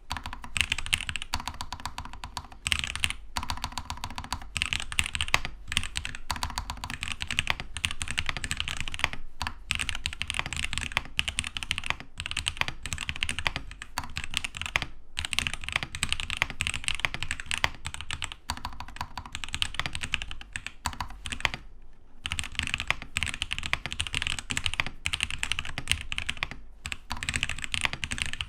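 Fast, continuous typing on a Keydous NJ80 mechanical keyboard with TTC Ace switches in a steel plate: a rapid run of key strokes with a few brief pauses.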